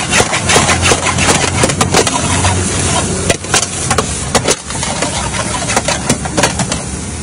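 Steel ladle clanging and scraping against a large wok as fried rice is stirred and tossed, over the steady roar of a gas burner. The strikes come fast at first and thin out after about three seconds.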